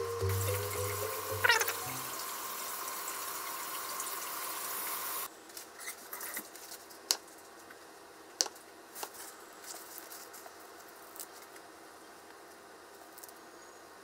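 A steady hiss for about five seconds, with a brief squeak near its start, that cuts off suddenly. After it comes a quieter stretch with a few sharp knocks of a kitchen knife slicing a boiled egg on a mango-wood cutting board.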